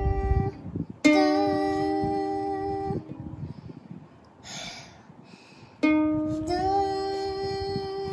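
Ukulele string plucked twice while being tuned: each note rings for about two seconds, and on the second the pitch slides up a little as the tuning peg is turned.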